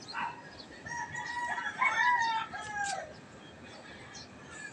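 A rooster crowing: one crow of several drawn-out notes, about two seconds long, starting about a second in.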